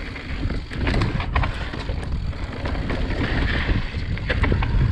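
Wind buffeting the microphone and the mountain bike rolling over rock on a descent, with scattered clicks and rattles from the bike.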